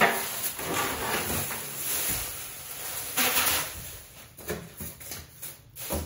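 Rustling and handling noise, with several short knocks in the last two seconds.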